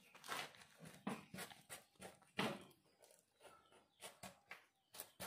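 A large knife blade scraping scales off a snakehead fish on a wooden board: a series of short, irregular rasping strokes, with a few sharp knocks near the end.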